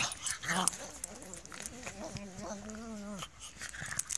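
Pug making a drawn-out grumbling moan for about a second and a half in the middle, with rustling of fur and bedding as a hand plays with it.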